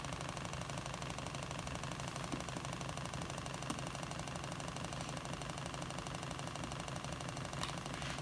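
Small electric motor of a cardboard spin-art machine running steadily with a fast buzzing rattle as it spins the paper, a couple of faint clicks on top.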